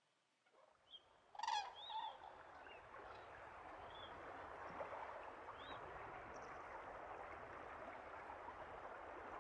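Faint natural ambience: a few short bird calls, the loudest about a second and a half in, over a steady hiss of background noise that comes up and holds.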